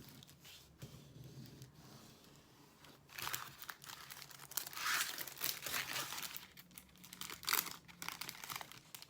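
Plastic film crinkling as a plastic-covered diamond painting canvas is handled. It is soft rustling at first, then louder, sharper crinkles from about three seconds in.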